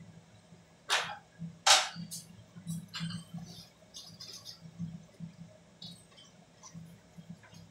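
Sharp metallic clicks and clinks of tools and parts being handled inside a ceiling-mounted air-conditioner unit during a fan motor repair. The two loudest come about one and two seconds in, followed by lighter scattered taps.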